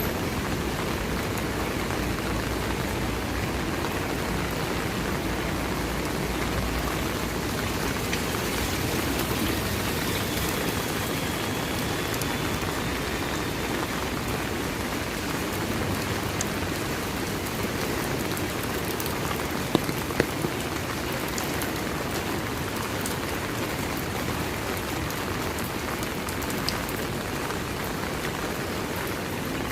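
Steady rain falling, an even hiss. A faint high whine comes about a third of the way in, and a couple of sharp clicks about two-thirds through.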